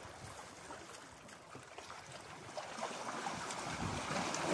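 Small sea waves lapping and washing against shore rocks, with wind buffeting the microphone; the wash grows a little louder near the end.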